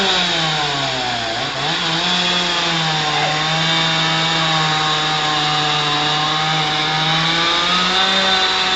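Chainsaw engine running at high speed while cutting wood. Its pitch sags about a second in as the chain bites under load, holds steady, then climbs again near the end as the saw frees up.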